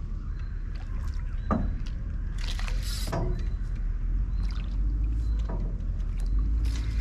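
Boat and tackle handling noise as an angler plays a hooked silver carp on a spinning rod and reel. A steady low rumble runs underneath, with scattered short clicks and a louder noisy burst about two and a half seconds in.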